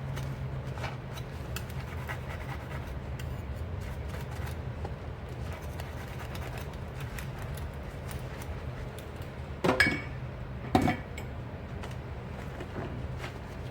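Dishes and cutlery clinking and clattering as they are washed by hand: light scattered clinks, with two louder clatters about ten and eleven seconds in, over a steady low hum.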